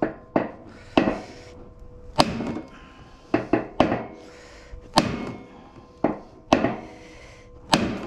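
Club hammer striking a metal tool held against a washing machine's drum shaft: about ten sharp metal-on-metal blows, irregularly spaced roughly a second apart, trying to drive the shaft out of a rear drum bearing that is stuck on it and worn out.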